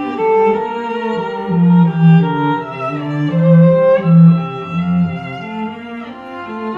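Recorded cello and string music played back through hi-fi loudspeakers and picked up by a microphone in the room: a run of held bowed notes with a strong low cello line.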